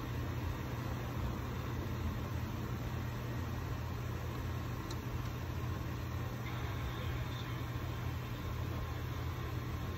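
Air conditioner running with a steady low hum; a faint tick about halfway through.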